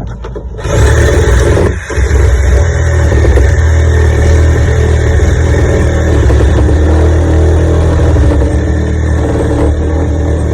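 A handheld power cutting tool spins up a little under a second in, then runs steadily under load with only a brief dip, cutting out a section of a wooden fishing boat's interior during demolition.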